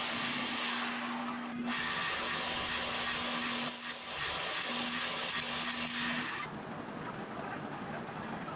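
Milling machine spindle running with a steady motor hum and high whine while a drill bit cuts into an aluminum plate. The sound breaks off abruptly a couple of times, then drops to a quieter background about six and a half seconds in.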